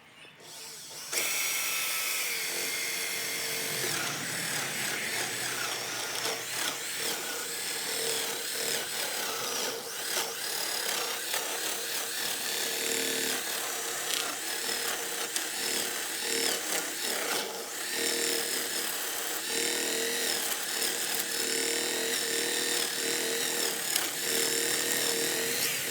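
Homemade drum chicken plucker driven by a corded drill, starting about a second in and running steadily as a chicken is plucked in it. The motor's pitch wavers as the bird loads it.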